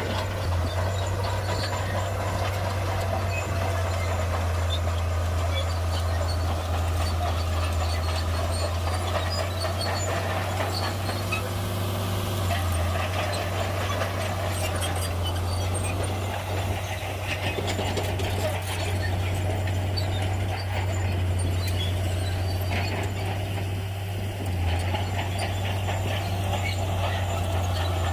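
Shantui bulldozer's diesel engine running with a steady low drone, with scattered light rattles and clinks over it.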